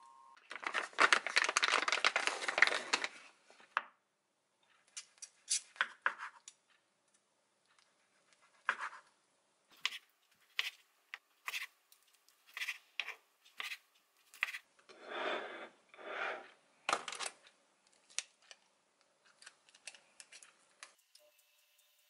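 Kitchen food-prep handling: a long burst of rustling and handling near the start. Then a run of sharp knife strokes slicing food on a wooden cutting board, each one tapping the board, followed by two longer scraping sounds and a few faint clicks near the end.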